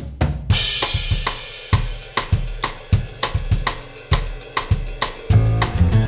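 Upbeat background music: a drum-kit groove with hi-hat and snare, a cymbal crash about half a second in, and a bass line joining about five seconds in.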